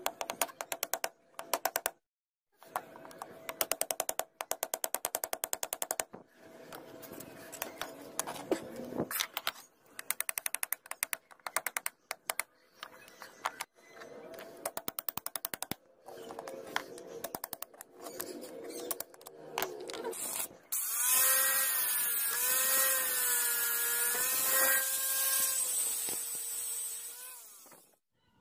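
Metal screwdriver blade clicking and scraping rapidly against a rusty steel knife tang and its wooden handle scales as the scales are pried off, in runs of quick clicks. About three quarters of the way through, a power tool takes over and runs for about six seconds with a wavering whine and a hiss, then stops.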